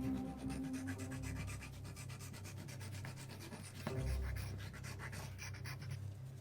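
Hand sanding the edge of a red LED with abrasive, in quick repeated rubbing strokes, to make it fit its holder. A single knock about four seconds in.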